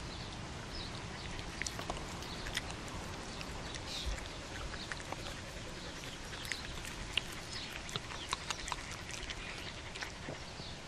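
Japanese Spitz chewing and licking at an insect, giving irregular wet mouth clicks and smacks.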